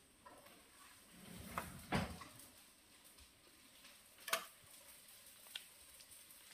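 Quiet handling of tableware with a few light knocks and clinks, the loudest about two seconds in and another a little after four seconds.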